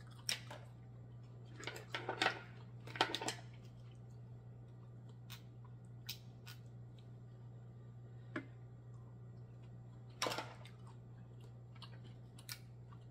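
Cooked black mussel shells clicking and scraping as they are pried apart by hand, in a few short crackly clusters and single sharp clicks, over a steady low hum.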